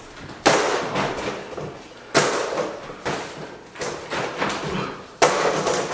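A few sharp thuds, the loudest about half a second, two seconds and five seconds in, each trailing off with a ringing echo, with a few softer knocks between them.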